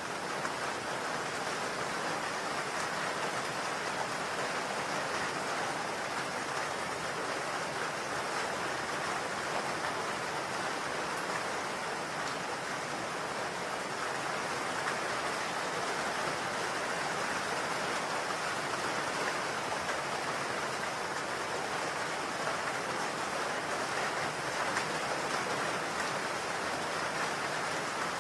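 A steady, even rushing noise like rain, with no change in level throughout: the masking sound of a subliminal audio track.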